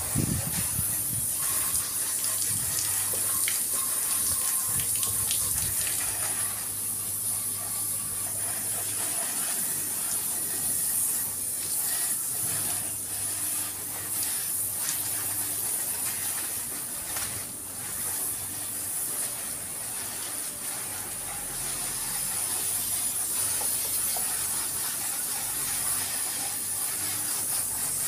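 Garden hose spraying water onto a scooter's body panels and the wet pavement: a steady hiss of spray.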